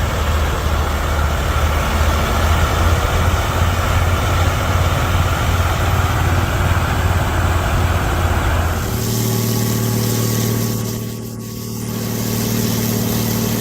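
Large road-cleaning machine running: a heavy engine drone with a pulsing low hum under a steady hiss. About nine seconds in, the sound changes abruptly to a smoother, steadier engine hum with clearer tones.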